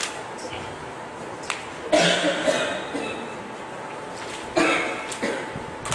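A person coughing twice, about two seconds in and again near the end, each cough sudden and fading over about a second, with a few faint taps between.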